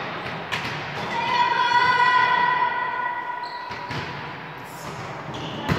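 A volleyball knocks on a sports-hall floor and is served with a sharp smack near the end. In the middle, someone holds a long, pitched call for about two and a half seconds.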